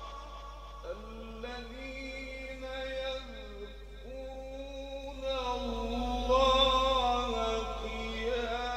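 A man reciting the Quran in a slow, melodic tajweed style, drawing out long held notes that step and slide from one pitch to the next, growing louder after the middle.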